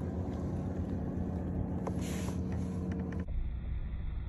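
Wind rumbling on the microphone and water noise around a fishing kayak, with a steady low hum under it; the sound changes abruptly about three seconds in.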